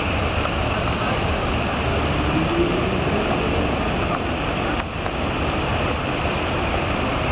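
Sydney's Archibald Fountain, its many arcing water jets splashing steadily into the basin as a continuous rushing noise, with a low rumble underneath.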